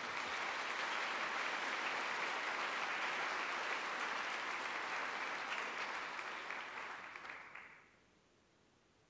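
Audience applauding, thinning out and stopping about eight seconds in.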